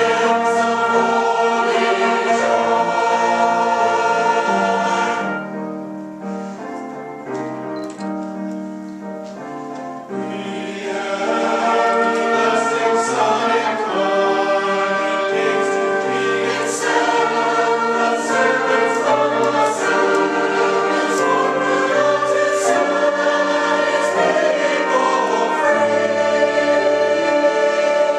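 Community choir singing, with a softer, thinner passage from about five to ten seconds in before the full choir comes back in.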